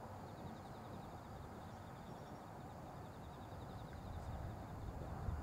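Distant low rumble of a Boeing 747-8F's four GEnx jet engines at taxi thrust, growing louder near the end. Above it is a rapid, regular high-pitched chirping.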